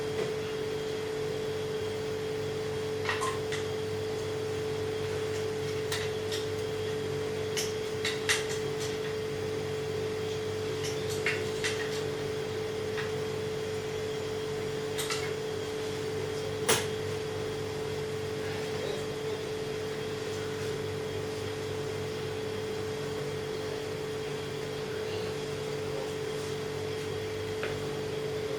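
A steady machine hum with a clear pitch, joined by a few lower steady tones, with scattered light clicks and knocks, the sharpest a little past halfway.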